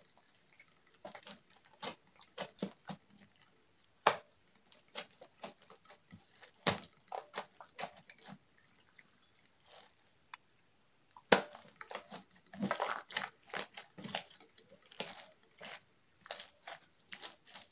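Pink slime mixed with small white beads being kneaded and pressed by hand: irregular sticky squishing with crackling pops, thinning out briefly past the middle and getting busier again soon after.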